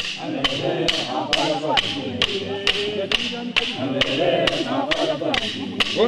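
Traditional dance song: voices singing over a steady beat of sharp percussion strikes, about three a second.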